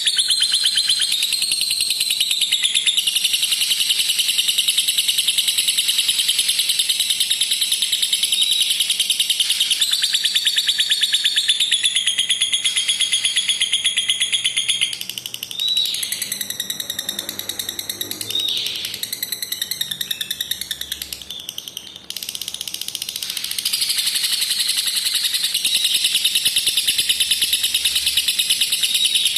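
Lovebird singing its long, rapid, high-pitched chattering trill ('ngekek panjang'), the drawn-out trill prized in lovebird song training. Halfway through, the trill gives way to several seconds of quieter, shorter chirps, then starts again.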